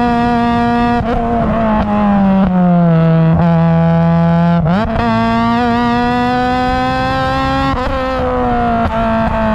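Honda Civic Type R EP3's 2.0-litre four-cylinder engine through a Tegiwa 4-2-1 manifold and 70 mm silenced exhaust, pulling hard under way. The revs sag over a couple of seconds, jump up quickly just under halfway through, hold, then ease down again near the end.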